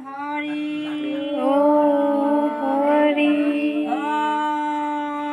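Women singing a slow devotional chant in long held notes that slide from one pitch to the next, over one steady low note.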